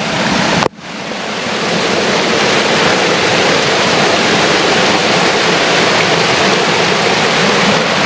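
Small waterfall: water rushing steadily as it pours from a rock pool over a mossy ledge. The sound cuts out abruptly under a second in and swells back over the next second.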